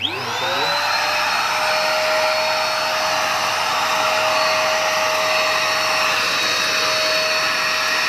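Eureka Forbes Super Clean handheld vacuum cleaner switched on, its motor whine rising over about the first second and then running at a steady high pitch with a rush of air. It is drawing air through a handkerchief fitted over the end of its wand.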